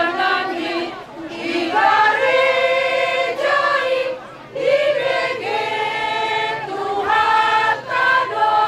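A group of women singing together in chorus, holding each note briefly with short breaks between phrases.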